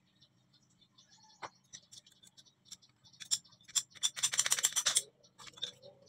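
A ratchet PPR pipe cutter clicking as it cuts through a plastic water pipe: scattered clicks and scrapes, then a quick, dense run of clicks about four seconds in, and a few last clicks near the end.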